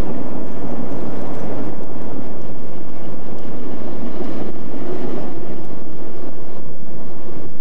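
Diesel shunting locomotive running as it moves along the yard tracks, with wind on the microphone.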